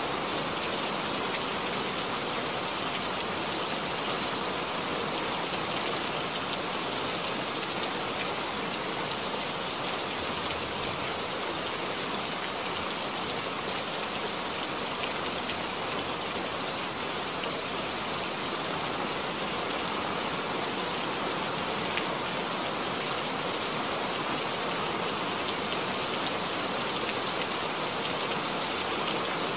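Steady rain falling, an even wash of drops that holds the same level throughout without let-up.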